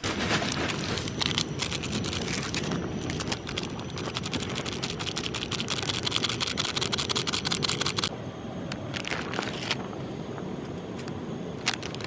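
Water bubbling and crackling as it comes to the boil in an aluminium mess tin, a dense fizzing crackle that eases to a calmer simmer about eight seconds in.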